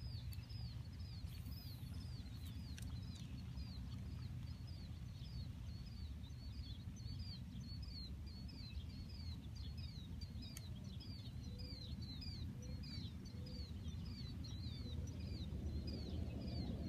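A steady chorus of short, high chirps repeating about three times a second, over a low steady rumble.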